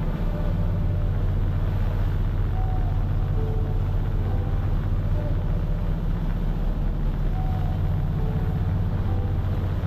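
Boat engine running steadily under way, a low, even drone.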